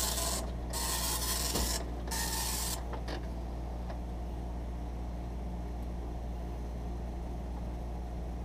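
Epson MX-80 III dot matrix printer running its self-test: the print head rasps across the paper in three passes of under a second each, with short pauses between lines, stopping about three seconds in. A steady low hum remains after it.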